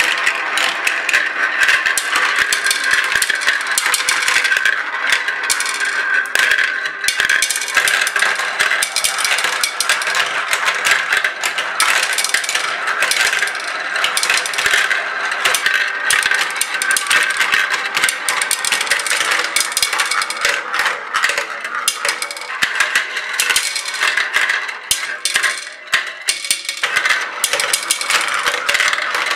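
Many small colored balls rolling and clattering through a plastic marble run, circling in plastic funnels and rattling down plastic tubes: a dense, continuous stream of clicks and rattles.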